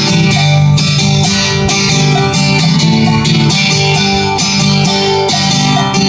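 Acoustic guitar strummed in a steady country rhythm, with a cowbell struck along on the beat.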